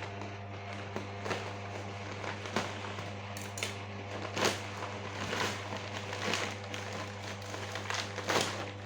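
Plastic snack packet crinkling and crackling in irregular sharp bursts as it is handled and opened, over a steady low hum.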